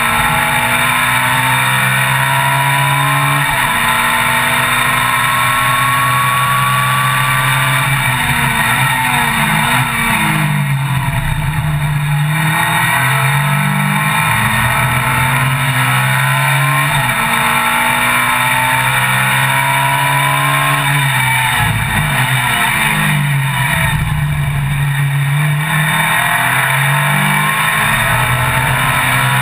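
Ferrari F430 GT Cup race car's V8 engine at racing speed, heard from inside the cockpit. It climbs through the revs under full throttle with upshifts. About nine seconds in, again about twenty-one seconds in and near the end, the pitch drops and jumps in quick dips: downshifts under braking for corners.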